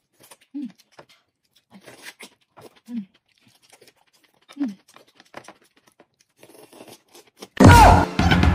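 Close-up eating sounds: noodles slurped and mouthfuls bitten and chewed, with three brief hums. Loud music starts suddenly near the end.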